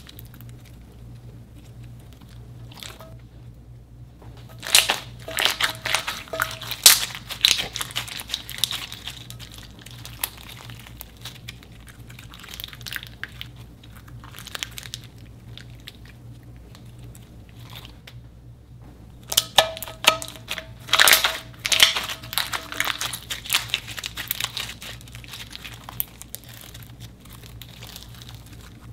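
Clear slime packed with foam beads being stretched and squeezed by hand, giving dense crackly, popping clicks. The crackling comes in two loud spells, about five seconds in and again about twenty seconds in, with softer squishing between.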